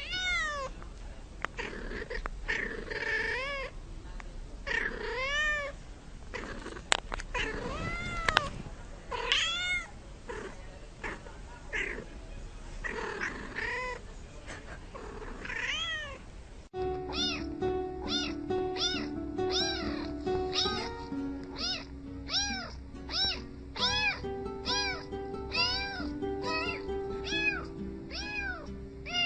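A house cat meowing over and over, a long rising-and-falling meow every second or two. About 17 seconds in, it cuts to a tune built from cat meows, one every half second or so in a steady rhythm over held backing notes.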